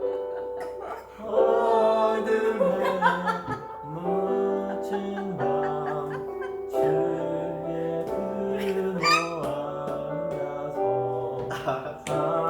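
Voices singing a Christmas carol medley over a recorded backing track, sustained melodic notes without a break.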